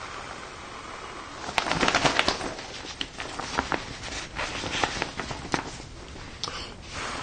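Rustling and crinkling of a military poncho's fabric as gloved hands wipe it down with an alcohol wipe to degrease it, with many small crackles. Loudest about two seconds in, then continuing more softly.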